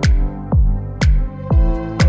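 Background music with a steady beat of deep, pitch-dropping kick drums, about two a second, over sustained chords.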